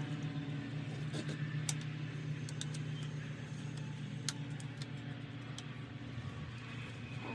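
A steady low machine hum, with scattered light clicks and clinks of small parts being handled as covers and fittings are refitted on the motorcycle.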